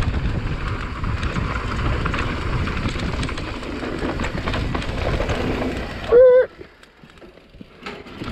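Mountain bike rolling fast down a dry, dusty dirt trail: a steady rumble and hiss of knobby tyres on loose dirt, with wind on the microphone. About six seconds in comes a short, loud squeal, and then the riding noise drops away sharply.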